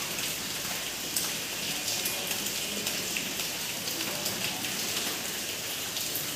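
A steady rain-like hiss with scattered faint ticks, as a marker writes on a whiteboard.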